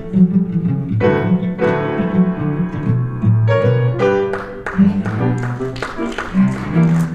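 A duo of low string instruments, a cello and a second bass-range string, playing a lively passage of separate, distinct notes in the low register.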